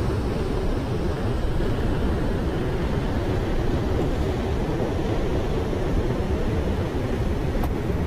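Turbulent river water rushing and churning as it pours out below a barrage's gates. The rushing is steady and loud, heaviest in the low end.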